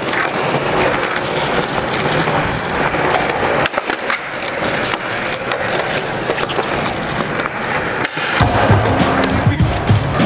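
Skateboard wheels rolling over a smooth concrete floor, with a few sharp clacks of the board, under music; a deep bass line comes in about eight seconds in.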